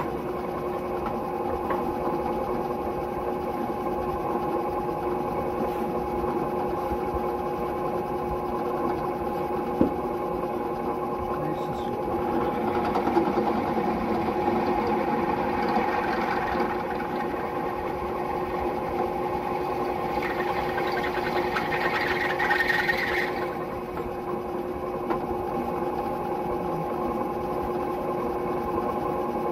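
Drill press motor running with a steady hum while the bit is fed slowly through the hinge bracket to drill the pivot hole; the cutting noise grows louder in two spells, about halfway through and again a few seconds later.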